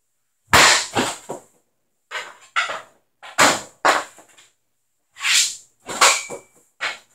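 CCM Heat street hockey stick slapping rubber pucks off a concrete floor: repeated sharp cracks in quick groups of two or three, each hit echoing briefly in the room.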